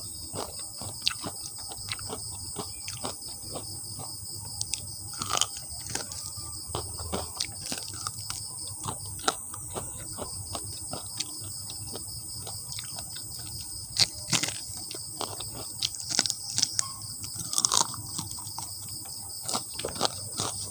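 Close-up crunching and chewing of crumb-coated fried chicken feet: many short sharp crunches and mouth clicks, heaviest about two-thirds of the way in. Under it runs a steady high-pitched insect drone.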